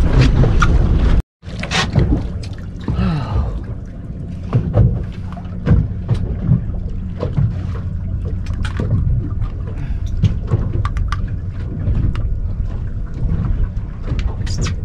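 Wind rushing over the microphone on an open boat, a steady low rumble, with scattered clicks and knocks throughout. The sound cuts out completely for a moment about a second in.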